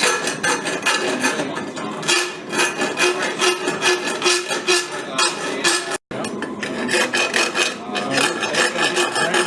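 A coarse blacksmith's hot file rasping back and forth over steel in quick repeated strokes, filing out a rough spot to clean up the profile. The strokes break off for an instant about six seconds in.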